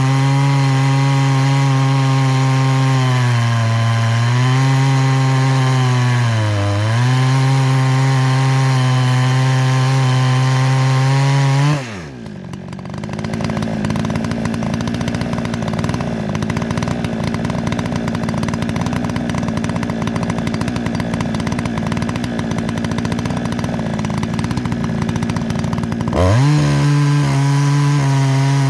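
Dremel rotary tool grinding the steel rakers and cutters of a chainsaw chain. Its steady whine sags briefly twice as it bears on the metal. About halfway through the pitch drops sharply and the sound turns rough and gritty for a long stretch, then the whine climbs back up near the end.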